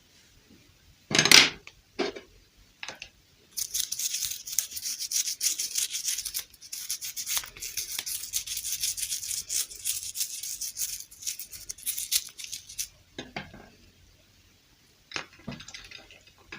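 Close-up handling noises: a sharp knock about a second in. Then about nine seconds of dense, crackly scratching or rubbing, and a few soft taps near the end.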